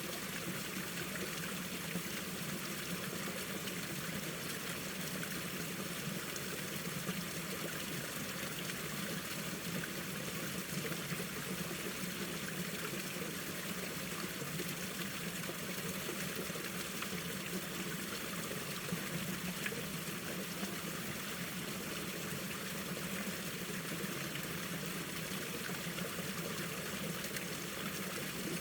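Mountain stream water flowing and trickling over rocks, a steady, even rush with no break.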